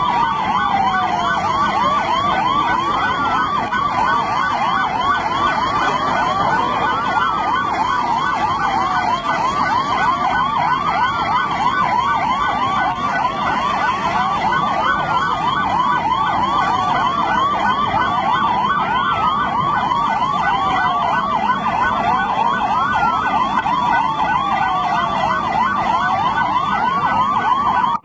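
Several emergency-vehicle sirens sounding at once: a fast yelping siren over a slower wail that sweeps down in pitch about every three seconds, loud and continuous.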